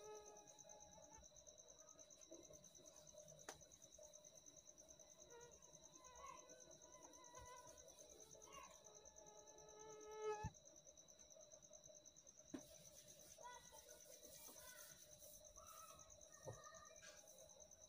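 Near silence: a duster rubbing softly on a whiteboard as it wipes it clean, over a faint, steady, high insect trill.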